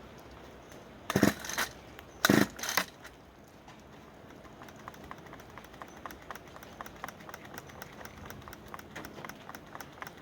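Two quick pull-cord yanks on a cold gas string trimmer (whipper snipper), a second or so apart, without the engine firing. A faint, fast ticking follows.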